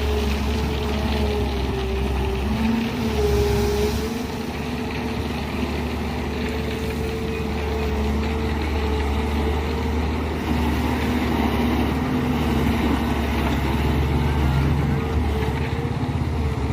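A large engine, most likely the excavator's diesel, running at a steady speed with a continuous low hum whose pitch wavers slightly.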